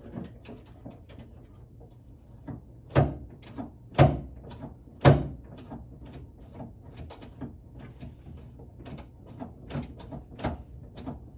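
Third-gen Camaro door handle and latch being worked to test a freshly adjusted handle rod: repeated mechanical clicks, with three loud clunks about three, four and five seconds in and lighter clicks after.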